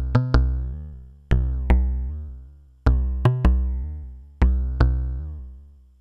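Make Noise modular synthesizer bass line: an XPO oscillator through the QPAS filter's low-pass output, struck through DXG channel 1 by René sequencer gates. It plays low, plucky notes that ring out and die away, in a repeating pattern of two or three quick strikes about every second and a half.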